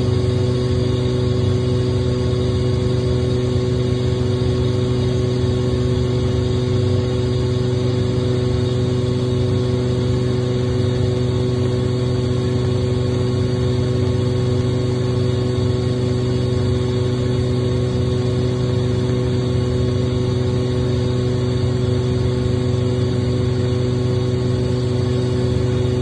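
Kaeser DSD 201 oil-injected rotary screw air compressor running on load at 7.5 bar, oil at 75°C: a loud, steady hum with several fixed tones over a rushing noise, unchanging throughout.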